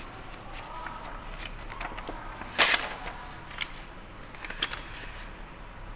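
Quiet room background with a few short, sharp clicks, the loudest about two and a half seconds in and two fainter ones a second and two seconds later.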